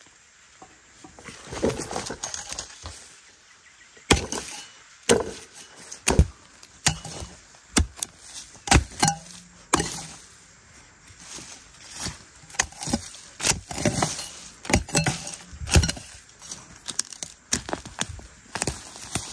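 A hoe chopping into dry earth to dig up cassava roots: an uneven run of sharp thuds and cracks, many of them, from about four seconds in. Before that, leaves and stems rustle.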